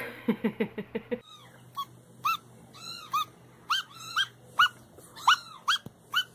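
A young kitten mewing over and over, short high-pitched mews that rise and fall, about two a second. Before that, in the first second, there is a quick run of lower, falling squeaks.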